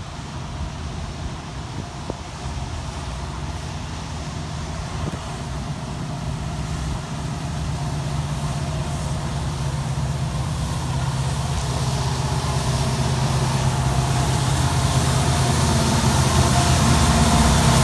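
Diesel locomotives at the head of a loaded freight train approaching, their engines a low steady drone that grows gradually louder.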